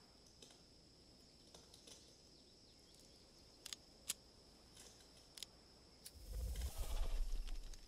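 Hushed forest ambience with a faint steady high whine and a few sharp clicks like twigs snapping. About six seconds in, a deep rumble swells up, becomes the loudest sound, and cuts off at the end.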